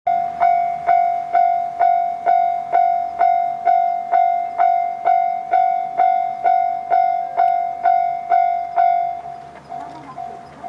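Japanese level crossing warning bell ringing in a steady rhythm of about two strikes a second, each a bright electronic clang. About nine seconds in it drops to a much lower volume and keeps ringing.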